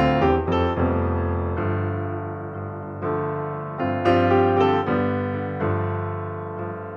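Background piano music: notes struck in clusters, each ringing and fading away.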